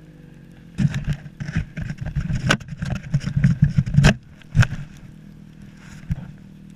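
Snowmobile engine idling with a steady low hum. For a few seconds, starting about a second in, loud irregular knocks and thumps hit the microphone, then the idle carries on alone.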